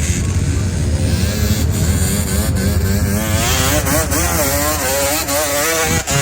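Off-road vehicle engine running hard under load, its pitch rising and falling repeatedly as it revs over rough terrain. The sound cuts off abruptly near the end.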